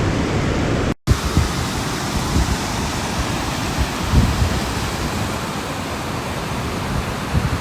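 Steady rushing outdoor noise with uneven low rumbles, cutting out for an instant about a second in.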